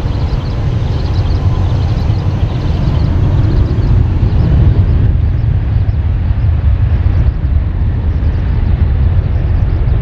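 Boeing 737-800's CFM56-7B turbofan engines at takeoff power: a loud, deep, steady rumble. The higher-pitched part fades about halfway through as the jet moves away.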